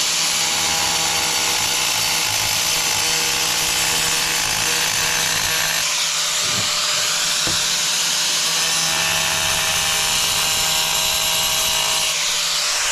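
Angle grinder running and cutting into a thin, brittle tile to make a hole: a steady, high grinding whine with a few steady tones, which change slightly near the end.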